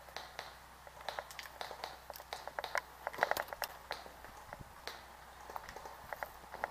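Dry twigs and leaves crackling and crunching as someone moves through dense brush, a run of short irregular snaps, densest in the middle.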